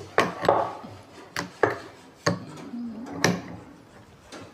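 Handling knocks from a trimmer router and spanners: about six sharp clicks and knocks, metal against metal and against the plywood workbench, while the router bit's collet nut is tightened.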